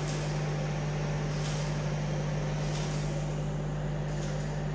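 Steady low electrical hum with fan-like noise from the orbital welding equipment left running after the weld, with faint soft swishes recurring about every second and a half.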